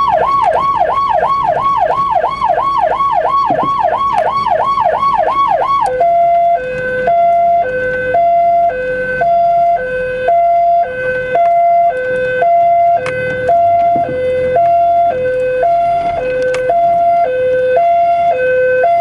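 Electronic siren on the cop truck: a fast yelp sweeping up and down, about two and a half times a second. About six seconds in it switches to a two-tone hi-lo, about one high-low cycle a second.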